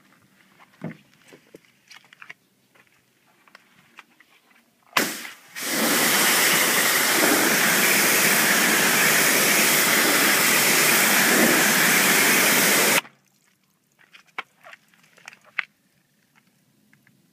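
Pressure washer jet spraying onto a car's lower door sill, rinsing off soap foam: a loud, steady hiss of spray on the panel that starts about five seconds in and cuts off suddenly some eight seconds later. Faint handling clicks come before and after.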